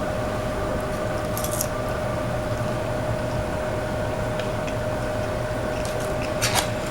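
A steady electrical hum with a constant mid-pitched tone, under a few brief, faint rustles and crackles of someone eating fries, about a second and a half in and again near the end.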